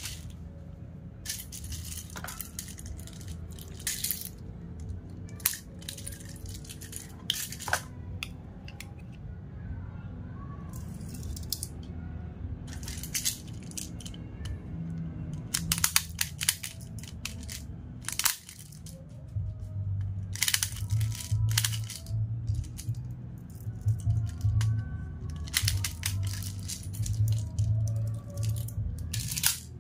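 Plastic airsoft BBs rattling and clicking in short, irregular bursts as they are pushed from a speed loader into a gas blowback pistol magazine, over background music.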